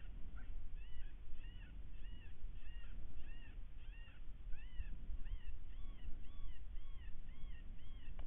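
Electronic predator caller playing a prey distress call: short high wailing cries, each rising then falling, repeated steadily about three times a second. A low wind rumble on the microphone runs underneath.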